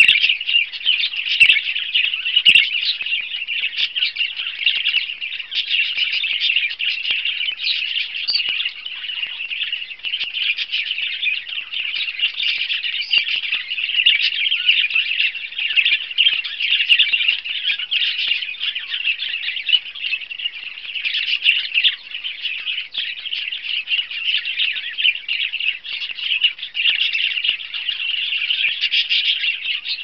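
Budgerigars chirping and chattering without a break, a dense run of high, overlapping calls from several birds at once.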